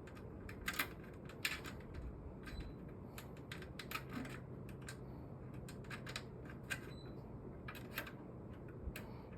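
Irregular light clicks and taps of small plastic and metal brackets and parts of a window air-conditioner unit being handled and tried in place.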